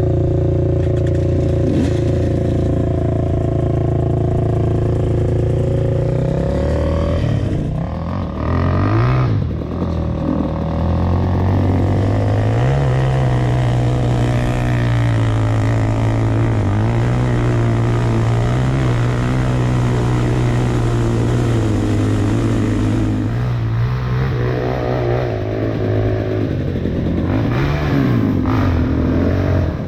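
KTM 300 two-stroke TPI dirt bike engine running under way at fairly steady revs. The revs dip and climb back about a third of the way in, and again near the end.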